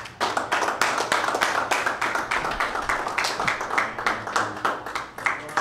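A small group of people clapping by hand, the claps quick and distinct at about six a second, easing off near the end.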